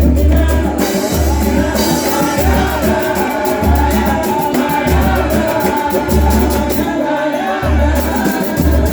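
Samba band playing live, with a singer's voice over a steady run of percussion hits and a pulsing bass line.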